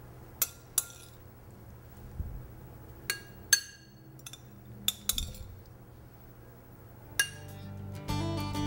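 Metal spoon clinking against glass bowls as salad is scooped from one bowl into another: several sharp, ringing clinks at irregular intervals. Background music comes in near the end.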